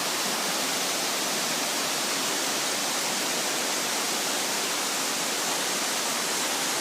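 Steady rush of falling water from a waterfall: an even, unbroken hiss.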